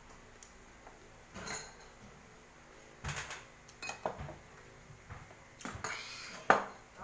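Glass bottles, a drinking glass and tableware knocking and clinking on a tabletop: about five separate knocks, the loudest near the end.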